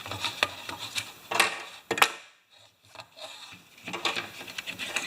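Hands working a lawn mower's recoil starter rope and pull handle: a string of light clicks and knocks with some rubbing, the sharpest knock about two seconds in, followed by a brief hush.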